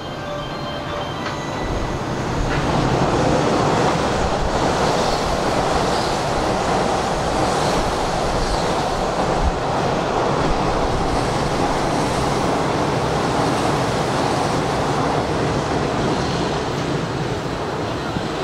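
Hanshin Railway electric train running by on the track: a steady rush of wheel and running noise that builds over the first few seconds, holds, and eases slightly near the end.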